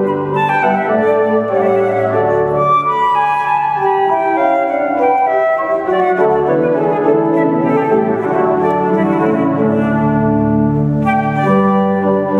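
Concert flute playing a flowing melody in a duet with an organ, which holds long, low chords beneath it.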